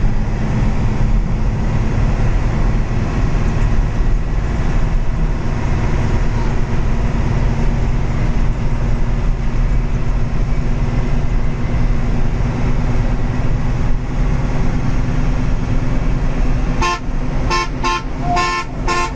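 Intercity coach engine and road noise heard from inside the cab, steady and loud. About seventeen seconds in, a quick string of short horn toots begins while one bus overtakes another.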